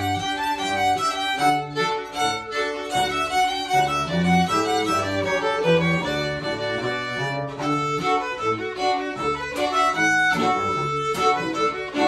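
String quartet of violins and cello playing a fiddle tune, the violins carrying the melody over the cello's bass line.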